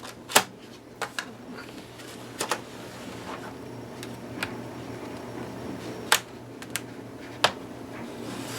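Plastic retaining clips of a laptop's bottom cover snapping loose as a guitar pick pries along the seam: scattered sharp clicks, about a dozen at irregular intervals.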